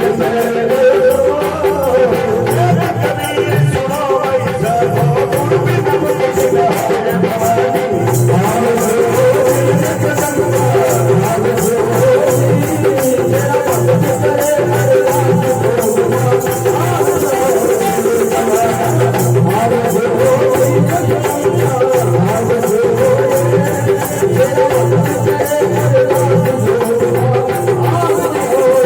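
Indian folk devotional bhajan music, likely an instrumental stretch: a wavering melody over a steady drum beat, with constant shaken rattle or jingle percussion.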